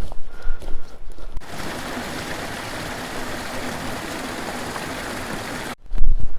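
Footsteps on a trail, then about a second in a steady rush of running stream water cuts in, lasting about four seconds before cutting off abruptly as the footsteps return.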